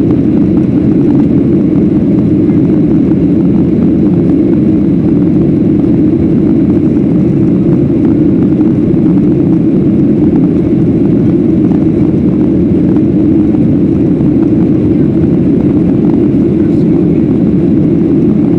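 Steady, loud cabin noise of a jet airliner in flight: a constant low rush of engine and airflow with no changes.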